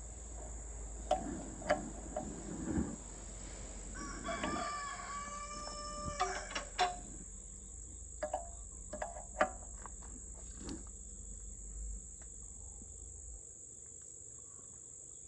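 A rooster crows once, a long call starting about four seconds in, over a steady high chirring of crickets. Scattered sharp metallic clicks and taps come from a wrench tightening a hydraulic hose fitting.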